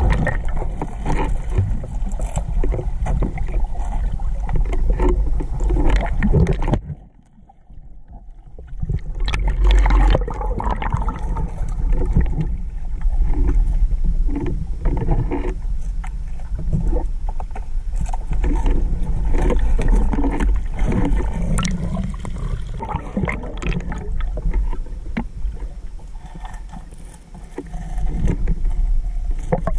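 Water sloshing and gurgling around a swimmer's camera, with many small knocks and a constant low rumble. The sound falls away abruptly for about two seconds, about seven seconds in, then comes back.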